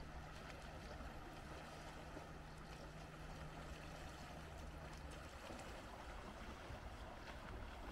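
Faint lakeshore ambience: small waves lapping against a boulder breakwater, with a low rumble and a steady low hum that stops about five seconds in.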